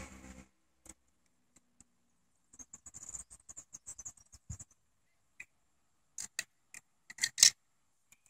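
Faint ticks and clicks of a small toy car being handled and turned over in the fingers, then a few sharper clicks, the loudest about seven and a half seconds in, as the toy car is set down on a stone slab.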